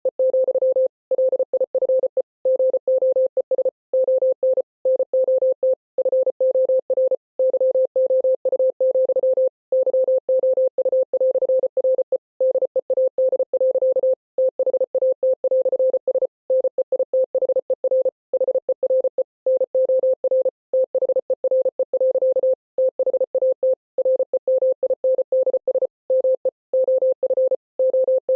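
Morse code played as a single mid-pitched beep keyed rapidly on and off in dots and dashes. Short silences between the beeps and longer breaks every second or so mark the letter and word spaces.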